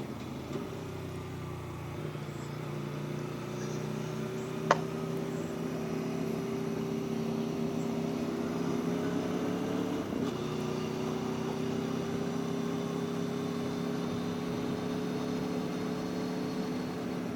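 Aprilia Tuono V4 1100 motorcycle's V4 engine pulling steadily under way, its pitch rising slowly, with a brief dip and an upshift about ten seconds in before it climbs again. A sharp click about five seconds in.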